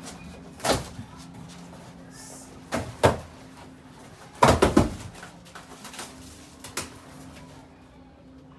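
Knocks and thumps of a fridge's cardboard packaging being handled and pulled open, single knocks spaced a second or two apart and a quick cluster of several about halfway through, over a faint steady hum.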